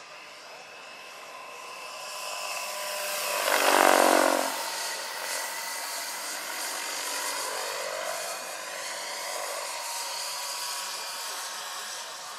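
Large electric scale model helicopter (Vario Gazelle SA-341/342, 2.36 m rotor) in flight, its electric motor and rotor whine. The sound swells to a loud peak about four seconds in as it passes close, with the pitch dropping, then carries on steadily.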